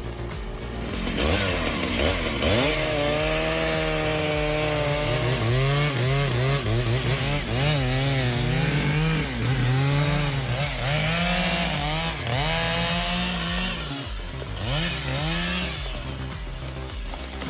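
Two-stroke chainsaw cutting into a tree, its engine note sagging under load and picking up again over and over.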